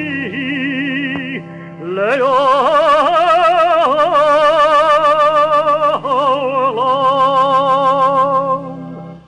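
A cantor singing Jewish liturgical music in an operatic style, holding long notes with wide vibrato, with a rising swoop about two seconds in, over a steady sustained accompaniment. The music fades out near the end.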